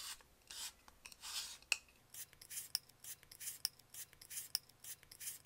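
Handheld plastic three-blade spiralizer cutting a raw potato as it is twisted by hand: the blade rasps through the potato in quick repeated scraping strokes, coming faster from about two seconds in, with a short high squeak about once a second.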